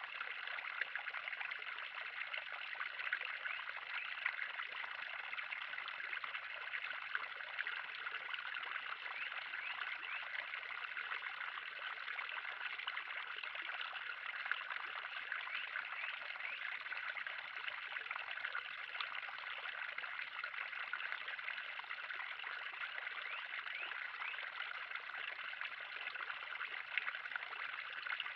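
Pond water trickling and splashing steadily, an even bright patter with no breaks.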